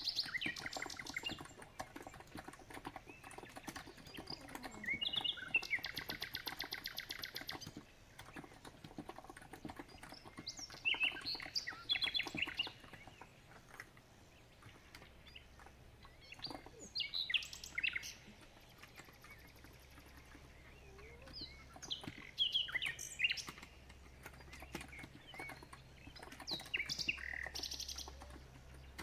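Songbirds chirping and calling in short phrases, with one fast trill of rapidly repeated notes about five seconds in, over a steady patter of soft keystrokes on a COX Empress electro-capacitive (contactless) keyboard.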